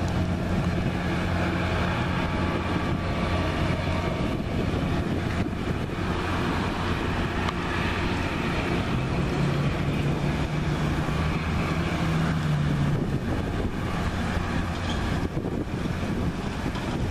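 Diesel commuter train pulling away from the station, its locomotive engine running with a steady low hum that rises in pitch for a few seconds partway through and then settles back.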